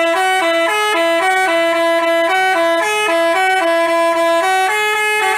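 Telolet basuri multi-tone bus horn playing a quick melody of short, steady, reedy notes that change several times a second. It starts abruptly.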